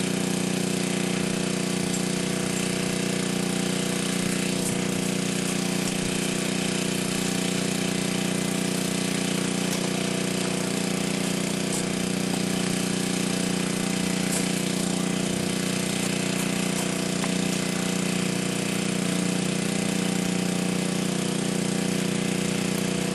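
Steady mechanical hum of running machinery: a low, even drone with a stack of overtones that does not change.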